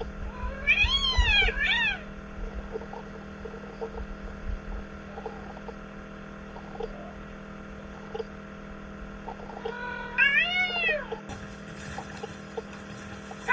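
Cat meowing: two meows in quick succession near the start, then more meows about ten seconds in, each rising and falling in pitch.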